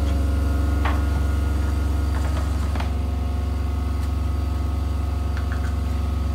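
A machine running aboard a boat: a steady, loud low drone with several constant tones. A few faint knocks come through about one and three seconds in.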